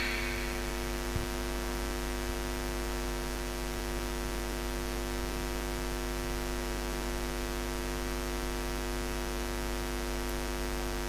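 Steady electrical mains hum through the microphone and loudspeaker system: a constant buzz with many even overtones, unchanging in pitch, with one small click about a second in.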